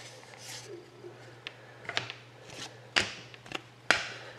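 Trading cards being slid off a stack and set down on a table by hand: about four short swishes and light taps, a second or so apart.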